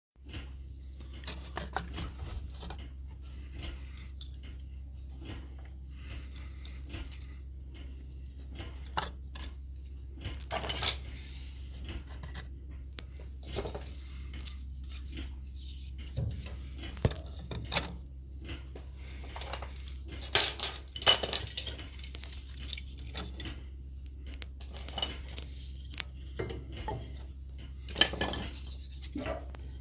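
Handling noises: scattered clinks, knocks and rustles, a few sharper clatters, over a steady low hum.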